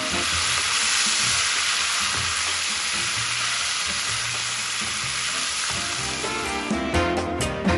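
Beef steaks frying in hot olive oil with garlic, the pan sizzling steadily and foaming where beer has just gone into the oil. Background music comes back near the end.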